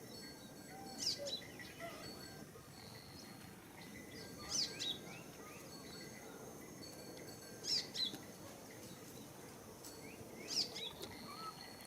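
A bird repeating the same short, high call about every three seconds, each a quick downward-sweeping phrase, over steady high-pitched insect trilling.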